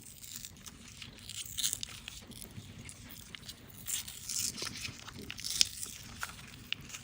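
Candy wrappers being unwrapped: irregular crinkling and tearing with short crackles and snaps, the sharpest snap about five and a half seconds in.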